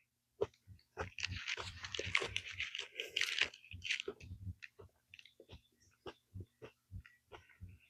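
Chewing a raw Gator Jigsaw chocolate chili pepper: wet, crunchy mouth sounds, busy in the first few seconds, then slower, spaced chews.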